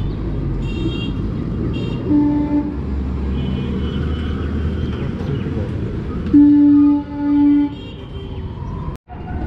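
Street traffic rumbling steadily, with a vehicle horn honking: a short toot about two seconds in, then two long, loud blasts back to back near the end.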